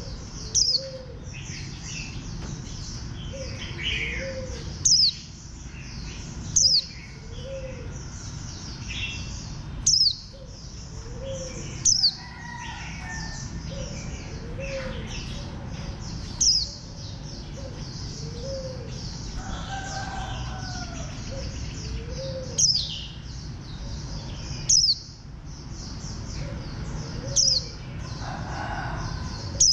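White-eye calling: sharp, high notes that fall quickly in pitch, repeated every one to two seconds, over softer twittering. A lower arched call repeats about once a second underneath.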